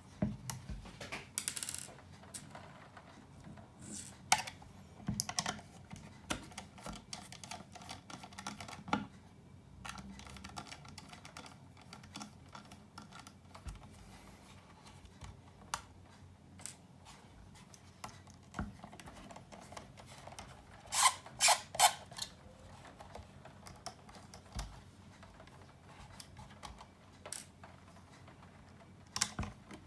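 Small clicks, taps and scrapes from handling and taking apart a small electronic amplifier unit's plastic and metal parts with hands and tools, scattered irregularly, with a quick run of loud clicks about two-thirds of the way through.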